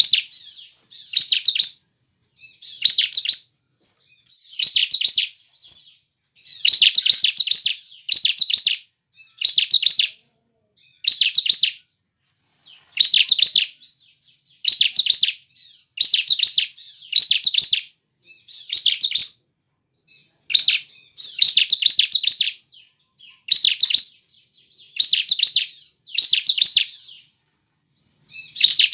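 Bar-winged prinia (ciblek) singing: short, fast trilled phrases repeated about every one and a half to two seconds.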